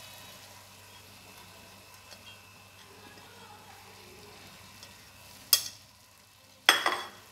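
Faint sizzle of tomato masala frying in an aluminium pot under freshly added chopped spinach. Near the end come two sharp clanks about a second apart, the second ringing briefly.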